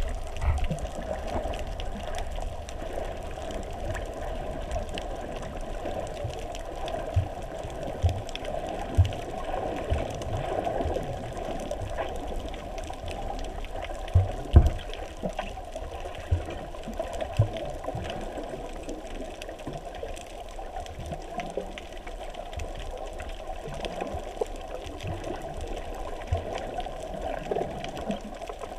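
Muffled underwater water noise heard through a GoPro's waterproof housing: a steady, dull rushing hiss, broken by irregular dull low thumps every second or few, the loudest about halfway through.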